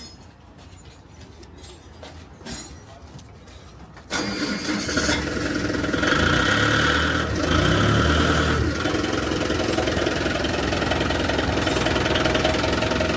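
A few light clicks, then about four seconds in a heavy machine's engine starts suddenly and keeps running. It rises in level for a couple of seconds, then settles into a steady run.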